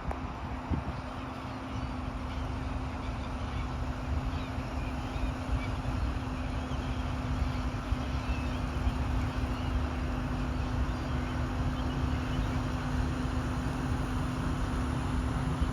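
Fendt 720 tractor's six-cylinder diesel engine running steadily under load while pulling a four-furrow reversible plough. It is a constant drone that grows slowly louder.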